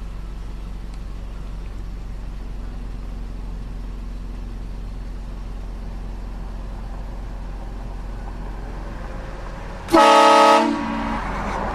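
A vehicle idles as a steady low hum. About ten seconds in, a vehicle-mounted train horn sounds one short, loud blast: a chord of several tones lasting under a second, with a lower note trailing briefly after it.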